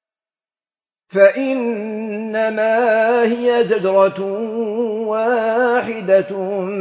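A man's voice chanting Quran recitation in melodic tajweed, Maghrebi style. It starts about a second in, after complete silence, and runs on in long drawn-out notes with a wavering, ornamented pitch.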